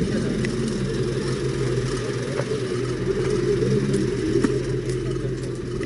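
Engine of a 4x4 pickup truck running steadily at low revs as it crawls slowly over rough, rutted dirt, with a few faint clicks.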